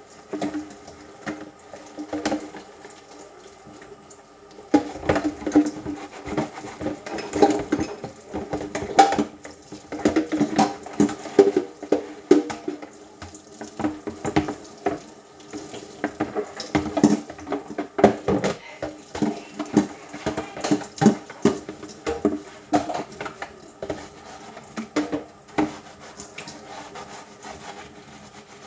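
Dishes being washed by hand in a kitchen sink: water running and splashing, with frequent short knocks and clinks of dishes and a plastic colander being handled.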